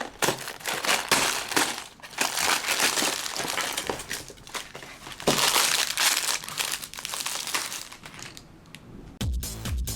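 LEGO set packaging being opened and handled, with irregular crinkling and rustling. About nine seconds in, electronic dance music with a steady beat starts.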